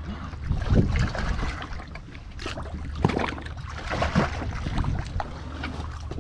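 Seawater splashing and sloshing as a swimmer moves and duck-dives, with the biggest splashes about a second in and around three and four seconds in, over a steady low wind rumble on the microphone.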